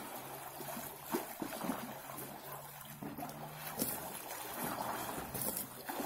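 Pool water splashing and sloshing as a person swims through choppy, wave-churned water in an above-ground frame pool, with irregular splashes. A faint low steady hum runs under it for a few seconds in the middle.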